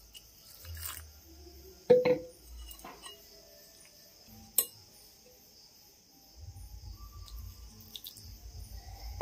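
A utensil clinking against a mixing bowl a few times, the loudest clink about two seconds in with a short ring. From about six seconds in, a quick, uneven rhythmic stirring of the thick besan (gram-flour) batter as water is worked in.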